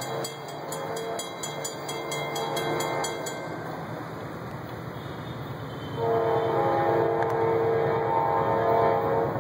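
Norfolk Southern freight locomotive's horn sounding two long chorded blasts for the crossing, the second about 6 s in and louder as the train draws closer. A grade-crossing bell dings rapidly under the first blast and stops about 3 seconds in.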